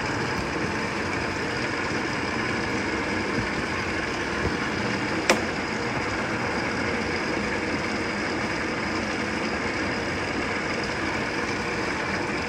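Water running into the tub of an Avanti top-load washer as it fills on its auto water-level setting, a steady hiss. A single tick about five seconds in.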